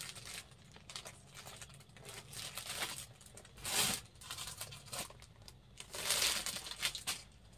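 Rustling and crinkling of sarees being handled and shifted on a bed, in irregular bursts that are loudest about four and six seconds in.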